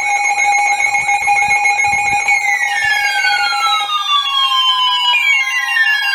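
Several Emergency Alert System alarm tones sounding over each other. Steady tones and a fast warbling tone are joined, from about two seconds in, by long falling sweeps that repeat about every three seconds.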